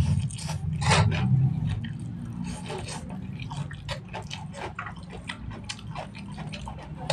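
Close-miked slurping and chewing of fried noodles, with a steady patter of small wet mouth clicks. It is louder over the first second or so.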